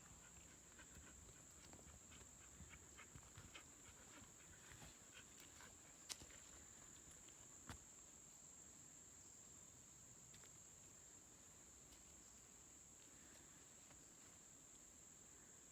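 Faint woodland ambience: a steady, high insect drone goes on throughout. Light ticks and crackles come over the first several seconds, and two sharper clicks about 6 and 8 seconds in.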